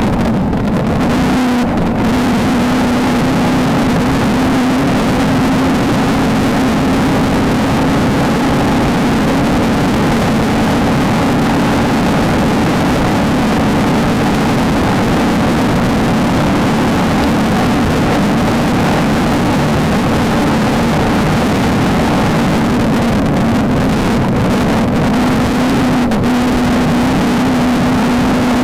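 Off-road desert race car engine running hard at steady high revs, its pitch wavering a little, over a constant rush of noise.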